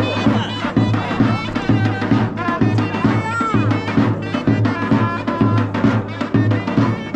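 Traditional Iranian folk music: a steady, evenly repeating drum beat under a melody.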